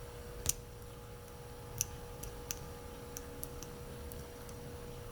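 Lock pick and tension wrench working the serrated pins inside a Kryptonite padlock during single-pin picking: about a dozen faint, irregular clicks, the loudest about half a second in, over a steady low hum.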